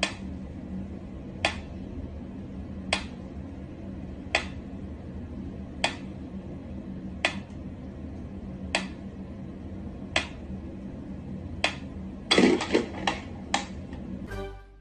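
Mechanical pyramid metronome ticking slowly, one sharp tick about every one and a half seconds. About twelve seconds in, a short burst of louder knocks and rustling breaks in.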